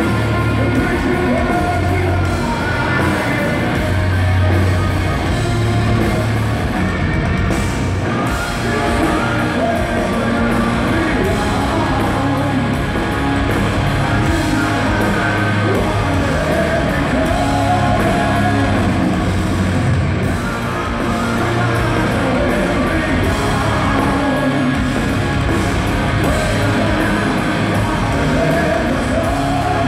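Live rock band playing in a large hall: electric guitars, bass and a drum kit with a male singer.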